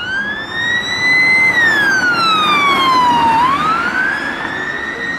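Police car siren sounding a slow wail: it rises, falls and rises again, each sweep about two seconds long, over faint road traffic noise.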